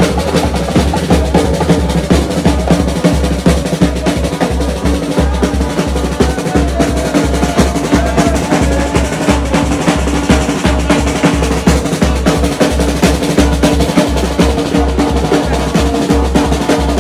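Music with a steady, driving drum beat and deep bass pulses under sustained melodic tones.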